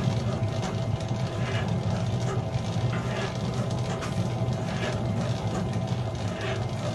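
Commercial spiral dough mixer running on its first, slow speed, its motor humming steadily while the hook turns through flour, eggs and liquid, with a faint regular swish a little more than once a second as the dough starts to come together.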